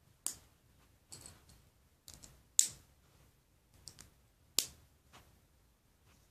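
LEGO plastic bricks and plates clicking as they are handled and pressed together: a string of sharp, irregular clicks, the loudest about two and a half seconds in and again a little after four and a half seconds.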